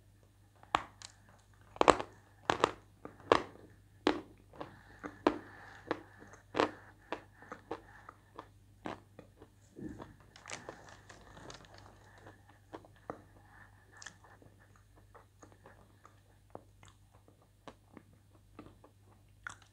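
Crunching and chewing of a dry slab of white edible clay, close to the microphone. Sharp, loud crunches come as it is bitten in the first few seconds, then softer, quicker crunches as it is chewed, thinning out toward the end.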